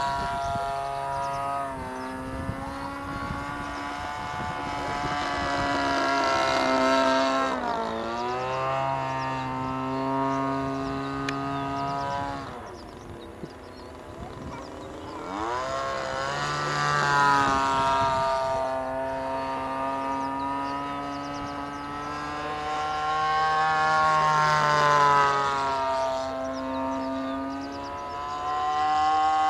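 Single-cylinder two-stroke petrol engine (CRRC Pro GF26i) of a quarter-scale Yak 54 model aerobatic plane, running in flight. Its buzzing note shifts up and down with throttle and manoeuvres. The pitch swoops down as the plane passes about a quarter of the way in, drops to a quieter low throttle midway, then climbs back up to full power.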